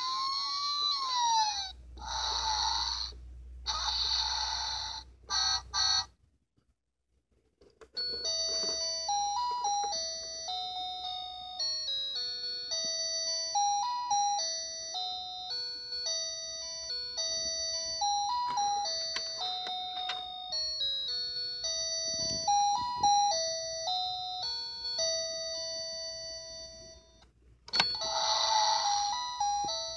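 Fisher-Price See 'n Say Vehicle Bring-Along toy's electronic sounds: a siren-like tone rising and falling at the start, then a few seconds of noisy vehicle sound effects. After a short pause it plays a long beeping electronic tune, and near the end a noisy sound effect starts again.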